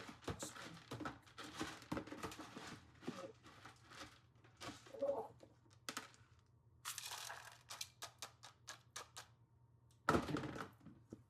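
Irregular rustling and crinkling, with many short clicks and knocks, as of something being handled; a louder burst of handling noise comes about ten seconds in.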